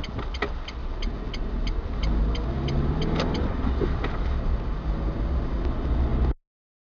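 Car engine and tyre rumble heard from inside the cabin as the car turns right and pulls away, the engine rising as it accelerates, with the right turn signal ticking about three times a second. The sound cuts off abruptly near the end.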